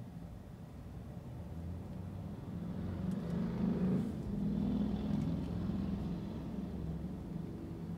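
A motor vehicle driving past outside, heard from inside a car: a low engine rumble that builds over a few seconds, is loudest about halfway through, then fades away.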